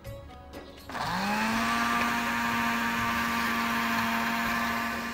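Electric blender grinding a green chutney of green chillies, coriander, mint, water and lemon juice. The motor starts about a second in, spins up quickly and runs with a steady hum.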